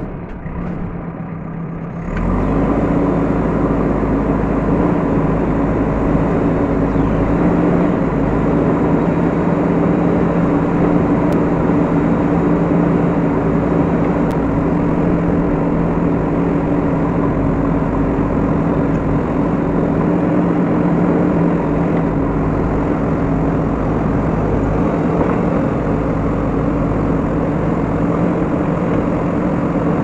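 JCB 3DX backhoe loader's diesel engine revving up about two seconds in, then running steadily at high revs under load as the front bucket pushes into a coal pile.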